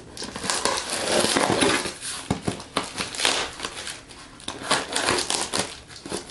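A box cutter slices through packing tape on a cardboard shipping box, then the cardboard flaps are pried open. It is a run of short scratchy rasps and crinkles.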